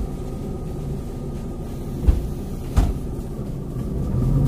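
City bus diesel engine idling with a steady low rumble, with two dull thumps about two and three seconds in. The engine note grows louder near the end.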